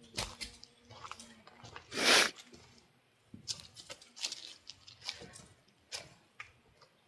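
Footsteps crunching on a trail, a scatter of short crunches and clicks, with one brief loud rustle about two seconds in.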